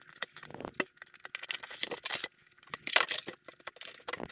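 Thin Lexan (polycarbonate) RC body shell crackling and clicking as it is handled and its window masks are picked loose and peeled off with a hobby knife. The audio is sped up, so it comes as a quick, dense run of sharp clicks and crackles.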